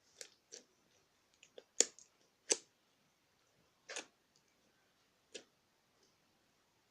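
Honey slime being pressed and played with by hand, giving short, sticky pops and clicks at irregular intervals, about eight of them, the loudest close together in the first two and a half seconds.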